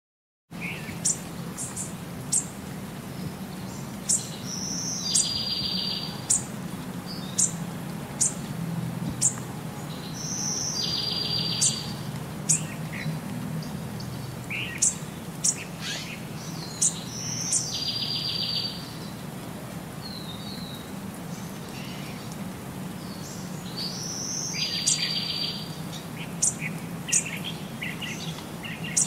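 Small birds chirping and singing: many short, sharp high chirps, and a short buzzy trill that comes back four times about six seconds apart, over a low steady hum.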